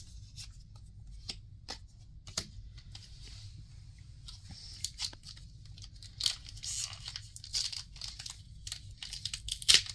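Light taps and clicks of trading cards being handled and set down, then from about six seconds in the crinkling and tearing of a foil Lorcana booster pack wrapper as it is opened and the cards pulled out.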